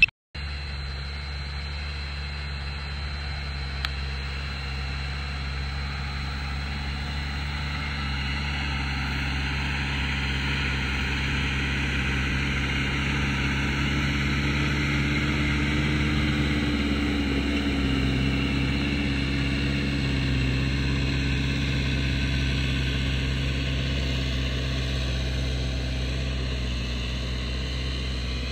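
Tractor diesel engine running steadily at working speed, as when pulling a cultivator, with a slight swell in loudness midway. The sound cuts out briefly at the very start.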